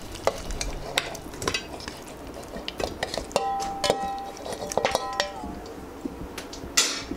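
Steel plate knocking and clinking against the rim of an aluminium pressure cooker as raw chicken pieces are pushed off it into the pot: a string of irregular knocks and clicks, with two brief ringing tones in the middle.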